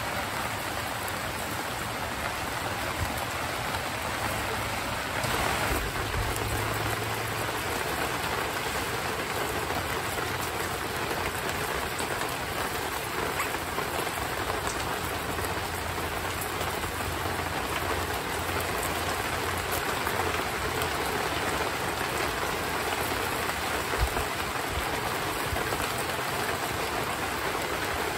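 Heavy rain falling steadily, an even hiss of drops, with one brief low thump late on.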